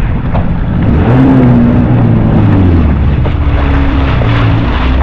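Yamaha SHO jet ski engine running, its pitch rising about a second in and then shifting up and down with the throttle.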